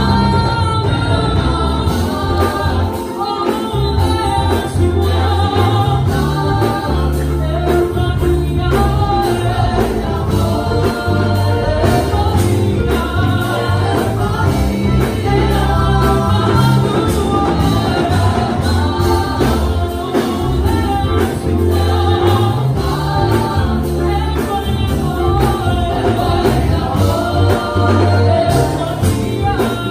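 Live gospel praise-and-worship music: a group of women and a man singing together, backed by electric bass and drums with a steady beat.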